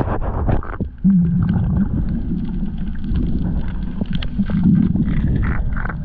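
Muffled underwater sound from a camera held below the surface: a low rumble with scattered small clicks and water noise. A low droning tone comes in briefly about a second in and again around four and a half seconds.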